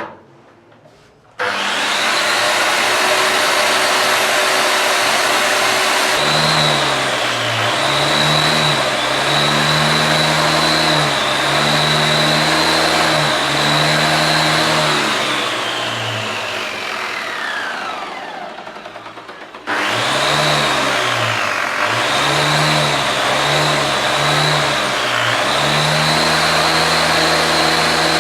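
A high-speed electric power tool runs with a steady whine that sags briefly now and again, as if pressed into work. About two-thirds of the way through it is switched off and winds down with a falling whine, then is switched on again and runs on.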